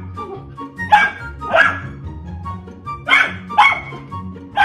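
Puppy play-barking at a toy: five sharp barks, mostly in pairs, over background music.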